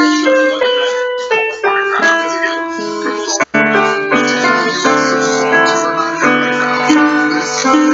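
Instrumental music on a keyboard with a piano sound, accompanied by a small acoustic guitar. A single-note melody steps downward, breaks off for a moment about three and a half seconds in, then gives way to fuller held chords.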